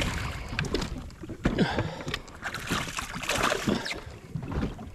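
Water splashing and sloshing in irregular bursts beside a jet ski's hull as a hooked snapper thrashes at the surface and is lifted from the sea.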